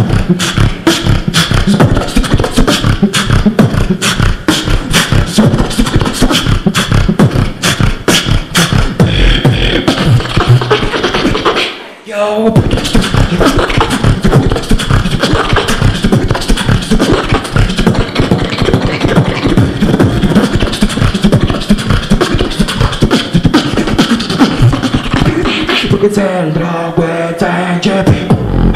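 Live beatboxing into a handheld microphone: fast, dense mouth percussion of kicks, snares and clicks over heavy bass. It breaks off briefly about twelve seconds in, and near the end the bass drops out for a pitched, gliding vocal sound.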